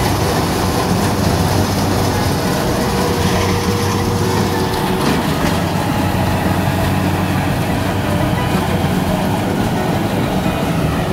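Kubota DC70 crawler combine harvester running steadily while it cuts rice: its diesel engine and harvesting machinery make a continuous, even machine drone.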